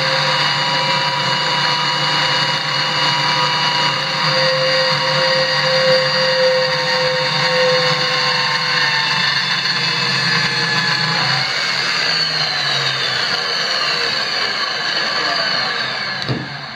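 Klutch 3 x 4 inch benchtop metal-cutting band saw (1 1/3 HP, 120 V motor) cutting through steel tube: a steady motor hum with several whining tones over the rasp of the blade in the steel. Near the end the tones slide down in pitch and the sound dies away as the cut finishes and the saw stops.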